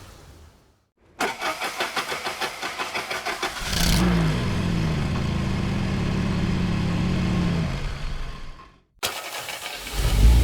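Car engine start: the starter motor cranks with a quick, even chug for about two and a half seconds. The engine then catches with a short rev, settles into a steady idle and fades out. Near the end a second start begins cranking and catches.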